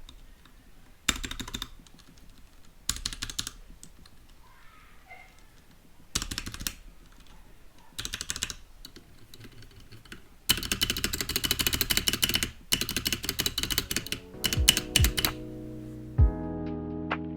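Typing on a Royal Kludge RK68 65% mechanical keyboard with TTC brown switches: a few short bursts of keystrokes, then a longer run of fast typing. Near the end, music with deep thumps comes in.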